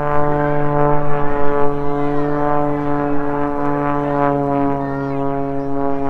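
Aircraft engine running, a loud steady drone that sinks very slightly in pitch, with crowd voices faintly over it.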